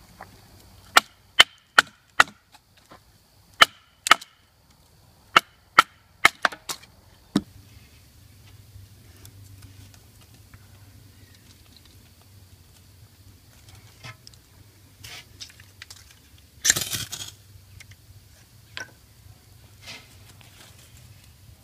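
A wooden baton striking the spine of a knife to split a stick of kindling: about a dozen sharp wooden knocks in quick groups over the first several seconds. Near the end comes one short harsh scrape as the tinder is lit.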